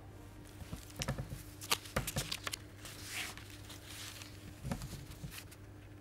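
Quiet room tone from open studio microphones: a steady low electrical hum with scattered faint clicks, taps and rustles.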